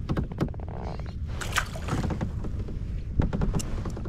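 A small largemouth bass released back into the water, with a brief splash about a second and a half in. Around it are a few sharp knocks and handling sounds on the kayak, over a low steady rumble of wind and water.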